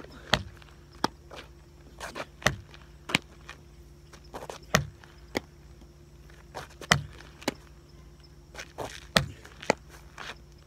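Footsteps and sharp knocks on asphalt, often in pairs about half a second apart, recurring every two seconds or so.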